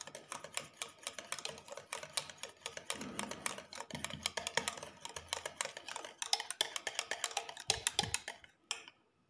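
Wire whisk beating thick pastry cream in a stainless-steel saucepan, its wires ticking rapidly against the side of the pan. The whisking stops about eight and a half seconds in.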